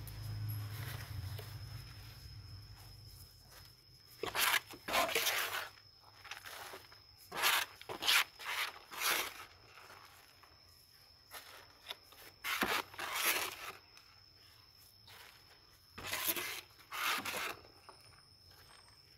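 Gloved hands pressing and scraping loose potting soil into a soft black plastic nursery pot around a transplanted seedling: short bouts of rustling, crumbling scrapes that come and go in four bunches with quiet between.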